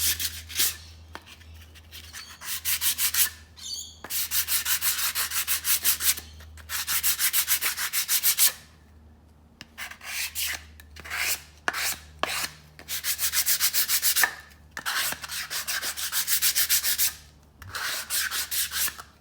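Sandpaper sanding a surface smooth in quick back-and-forth strokes, several a second. The strokes come in runs with short pauses between them.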